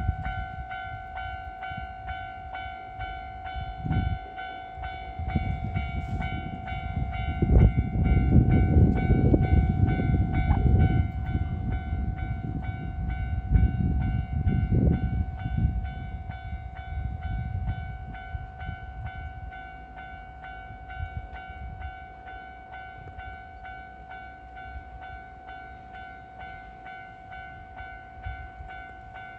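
Japanese railway level-crossing warning bell starting up and ringing on with a steady, evenly repeated electronic clang, the signal that the crossing is closing for an approaching train. A low rumbling noise swells under it through the first half and then fades.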